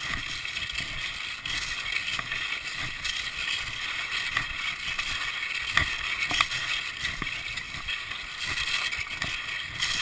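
Cross-country skis sliding along a snowy track in a steady scraping hiss, with now and then a sharp crunch as a ski pole plants into the snow.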